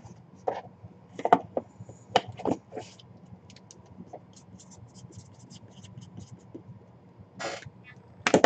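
Hands handling cardboard puck boxes and a boxed hockey puck on a table: a run of short scrapes and light knocks in the first three seconds, faint ticks after that, and a longer scrape near the end.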